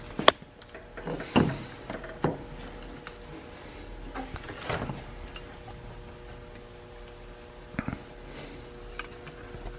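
Scattered clicks and knocks of metal engine parts being handled and pushed together as the cylinder is worked down over the piston rings, over a faint steady hum.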